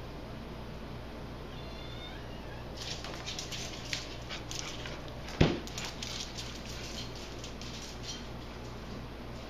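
A small dog's claws clicking and skittering on a tile floor as it darts about, a rapid run of clicks lasting several seconds. One loud, sharp sound stands out about halfway through.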